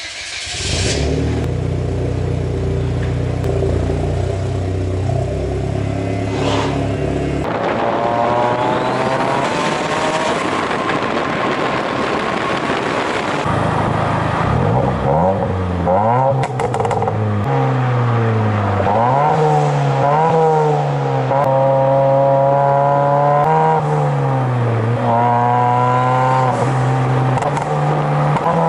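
Hyundai Genesis Coupe 2.0T's turbocharged four-cylinder firing up right at the start and idling steadily through a tuned pop-and-bang exhaust. About seven seconds in it begins revving over and over, the pitch climbing and falling back, with sharp crackles and pops from the exhaust scattered through.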